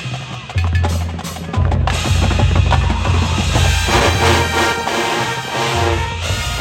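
Marching band percussion section playing a drum roll with bass drums and low sustained notes, joined by the winds and brass holding pitched chords about four seconds in.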